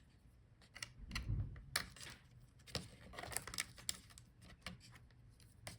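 Faint, scattered small clicks and taps of hand work on a laptop's internals, as the antenna wire connectors are unsnapped from the Wi-Fi card.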